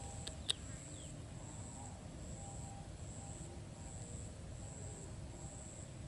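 An insect trilling high-pitched in repeated short stretches, about one a second, over a low outdoor rumble. Two small sharp clicks sound about half a second in.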